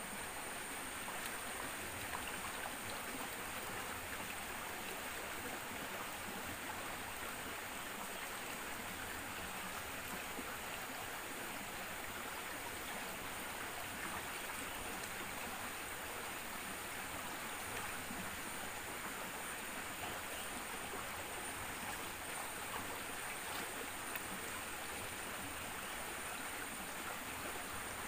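Flowing stream water rushing steadily, with a thin, steady high-pitched tone above it.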